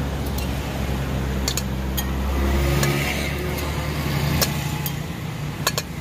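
A motor vehicle's engine running close by, swelling to its loudest about halfway through and then fading away, as a vehicle passing. A few sharp metallic clinks, like utensils against a steel bowl, come through on top.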